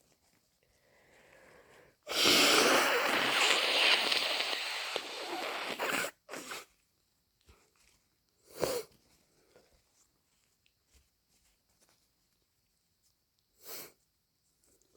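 A person with a head cold gives a loud, forceful blast of air through the nose, about two seconds in, that lasts about four seconds and fades. A few short nose sounds follow later.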